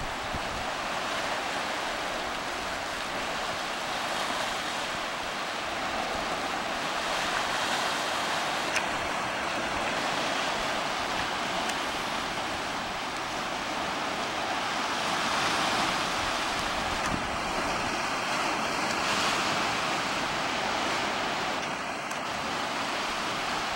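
Sea waves washing against rocks: a steady rushing hiss that swells and eases gently.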